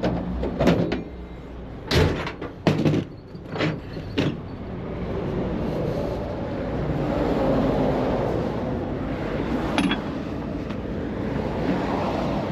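Several sharp clunks and knocks in the first few seconds, like doors or heavy gear being shut, then a heavy vehicle's engine running steadily.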